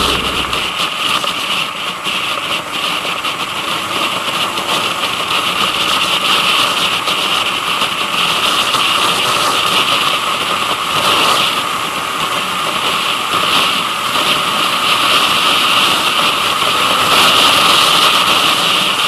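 Motorcycle engine running steadily while riding at road speed, heard from a bike-mounted camera with a constant rush of wind noise over it.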